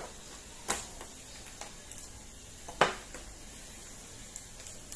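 Hands working seasoning into whole fish in a thin plastic tray: quiet rubbing and handling, with two sharp clicks of the tray, one a little under a second in and one near three seconds.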